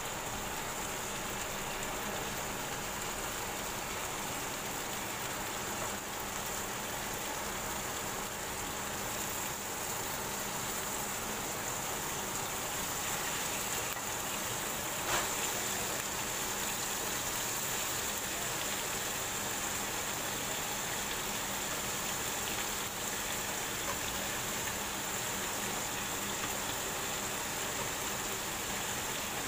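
Chicken pieces frying in oil in a nonstick pan, a steady sizzle, with a single sharp click about halfway through.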